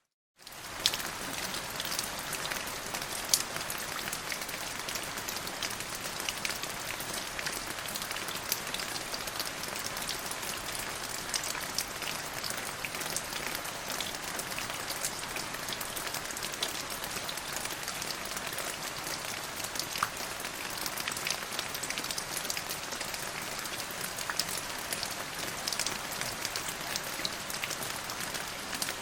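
Steady rain falling, with many sharp individual drop ticks on a hard surface over an even hiss. The sound drops out completely for a split second at the very start, then comes back.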